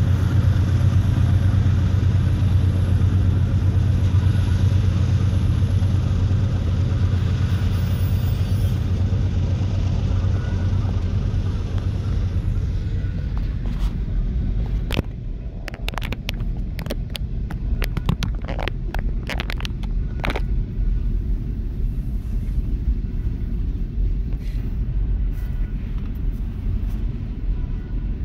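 Diesel freight locomotives, a GE Evolution-series unit among them, passing with a steady low engine drone. About halfway through the drone gives way to double-stack container cars rolling by: a run of sharp wheel clacks, then a steady rumble.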